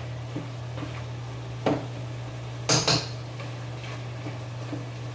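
Metal kitchenware clinking against pots and pans: a knock about a second and a half in, then two sharp clinks in quick succession near the three-second mark, over a steady low hum.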